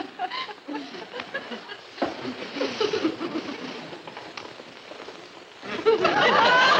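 Studio audience laughter: scattered chuckles that swell into a loud laugh about six seconds in.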